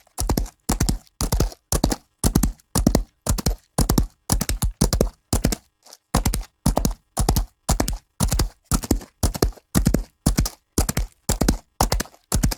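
Steady rhythmic knocking, about two and a half knocks a second, each one sharp and clipped, with a brief pause about six seconds in.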